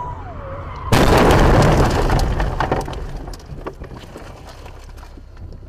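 Car collision heard from inside the dashcam car: a sudden loud crash of impact about a second in, loud noise that fades over the next couple of seconds, then scattered clicks and ticks.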